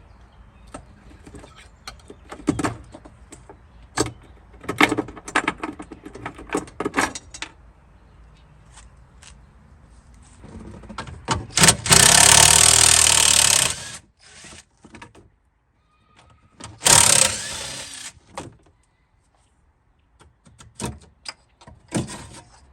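Metal clicks, knocks and scraping as a pry tool works a Ford Mustang II trunk lock cylinder loose. About halfway through there is a loud hiss of WD-40 aerosol spray lasting about two seconds, and a second, shorter spray about three-quarters of the way in.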